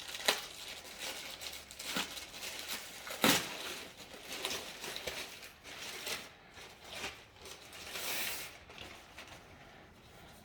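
A package being cut open and unwrapped by hand: crinkling and tearing of the wrapping, with scattered sharp clicks and knocks and a longer rip about eight seconds in.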